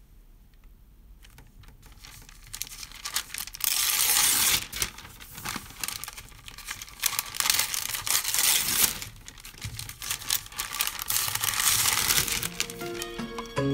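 Crackling, rustling noise full of small clicks, swelling and fading in several waves, like crumpling or tearing; music starts right at the end.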